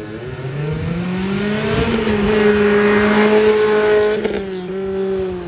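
A sports car accelerating hard from the autocross start and passing close. Its engine note rises over the first two seconds, then holds steady and is loudest about three to four seconds in, easing off near the end.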